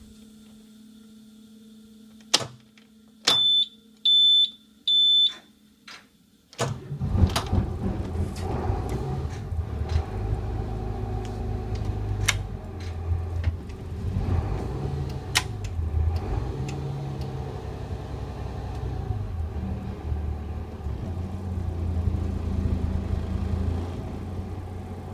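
Three short high warning beeps from the bus dash with the engine off, then the cold Cummins 8.3 diesel restarts about six and a half seconds in and runs at idle with an uneven, pulsing low note and scattered ticks.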